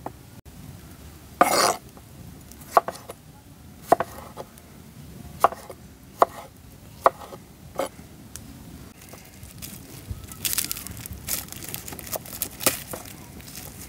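A kitchen knife cutting tomatoes and garlic on a wooden cutting board, each cut ending in a sharp knock of the blade on the wood. The cuts come singly about a second apart, then quicken into a close run near the end.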